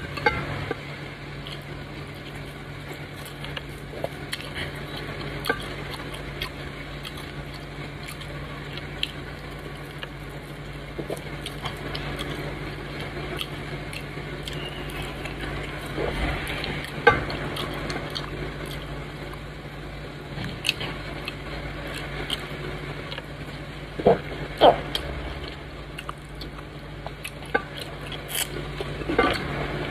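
Eating by hand: soft squishing of a dough ball being pinched and dipped into thick soup, with chewing and small clicks of fingers against a glass bowl. A steady low hum runs underneath.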